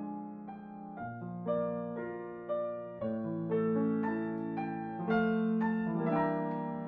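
Background piano music: gentle held chords and single notes, a new note or chord every half second to a second.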